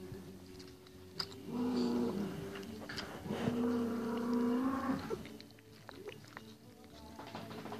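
A puppy suckling and chewing at a feeding-bottle nipple, with small wet clicks. Two long, steady, voice-like tones stand out over it, the second longer than the first, about a second apart.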